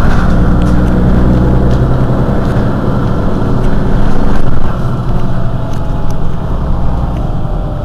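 Mercedes-Benz Citaro G articulated bus's rear-mounted engine idling with a steady low note; the sound drops in level a little over halfway through.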